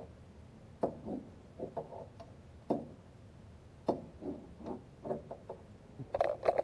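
Hand tool clicking and knocking against metal on a car engine's timing cover while bolts are being removed: separate sharp clicks about once a second, then a louder clatter near the end.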